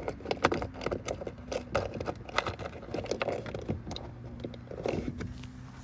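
Small plastic trim pieces and clips being handled and fitted by hand, giving a string of irregular light clicks and rattles.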